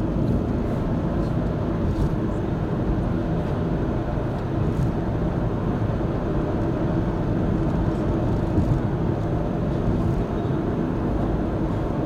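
Steady road noise from the tyres and engine of a car cruising on a highway, heard from inside the cabin.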